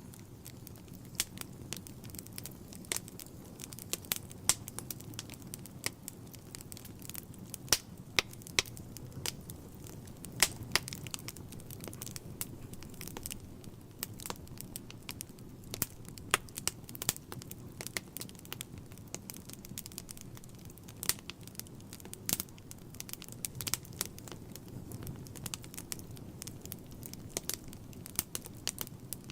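Wood fire burning in a fireplace: irregular sharp crackles and pops from the burning logs, several a second, over a low steady noise of the flames.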